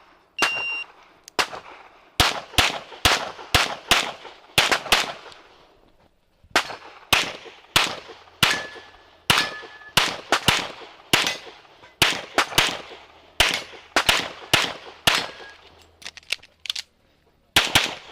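A shot timer beeps, then a Metrillo "The Master" Standard Division pistol fires rapid strings of shots, mostly in quick pairs, through a practical shooting stage. The firing pauses briefly around five to six seconds in and again near the end, and a short metallic ring sounds near the middle.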